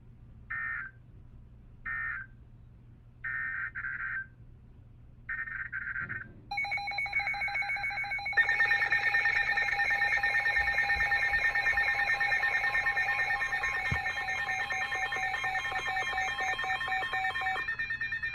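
Weather radio EAS data bursts: a series of short, screechy digital beeps. About six seconds in, a loud, rapidly pulsing multi-tone alarm starts and gets louder two seconds later. Near the end it gives way to a single steady tone.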